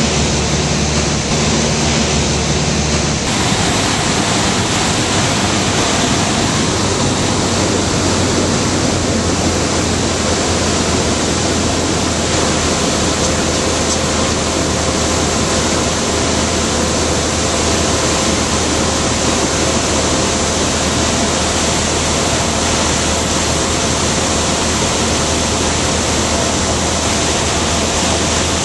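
Loud, steady cabin noise of a light single-engine propeller aircraft in flight: engine and propeller running with wind rushing past. The sound shifts slightly about three seconds in.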